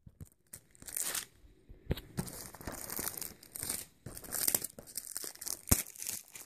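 Plastic shrink-wrap being torn and peeled off a DVD box set, crinkling in irregular bursts with a couple of sharp clicks.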